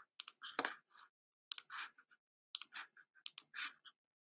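About a dozen light, sharp clicks in small uneven clusters, with silence between them.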